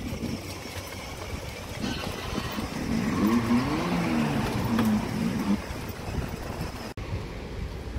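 Children's electric ride-on buggy playing its engine-revving sound effect: a synthetic engine roar that climbs and then falls in pitch for about two and a half seconds, starting about three seconds in, over a low rumble.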